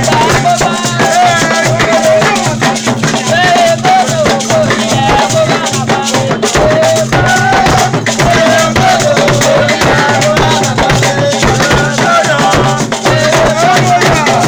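Yoruba ceremonial music played live: voices singing over rattles shaken in a steady, dense rhythm, with drums.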